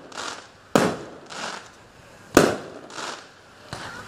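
Aerial firework shells bursting overhead: two sharp bangs about a second and a half apart, each trailing off, with quieter hissing bursts between them.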